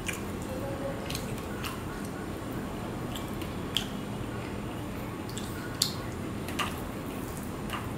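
A person eating rice and small-fish chorchuri by hand close to the microphone: fingers working the food on the plate, then wet chewing and mouth smacks. A handful of short sharp clicks stand out, spread irregularly through.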